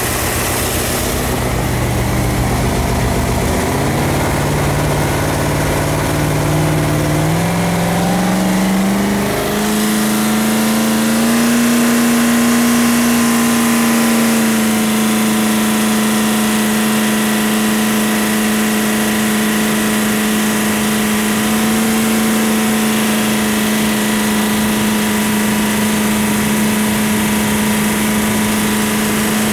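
Jet boat's 458 Chevy big-block V8 with open headers, climbing in pitch in a few steps over the first ten seconds as the boat gets under way, then running steady at high revs.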